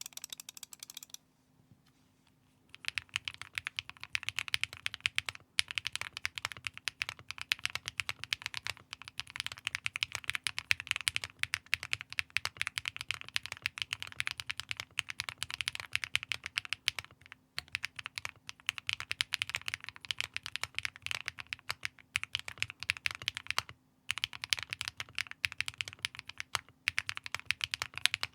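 Mode65 custom mechanical keyboard with HMX Hyacinth V2U switches, a Xinhai spacebar and PBT keycaps being typed on quickly and continuously. The typing starts about three seconds in and is broken by a few short pauses.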